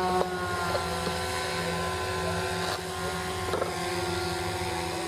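Radio-control model airplane engine buzzing steadily at a near-constant pitch as the plane flies past.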